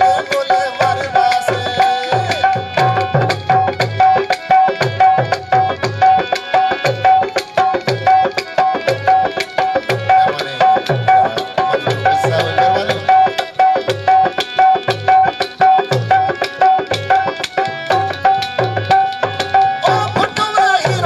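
Live Sindhi folk music, an instrumental passage: a dholak hand drum plays a fast repeating rhythm under a steady held melody note, with harmonium accompaniment.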